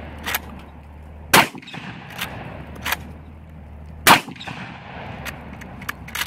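Adler A-110 12-gauge lever-action shotgun firing buckshot twice, about a second and a half in and again about four seconds in. Shorter, quieter clacks fall between and after the shots as the lever is worked to chamber the next shell.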